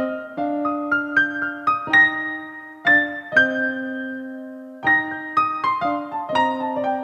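Background music: a gentle piano melody playing struck notes and chords that ring out and fade.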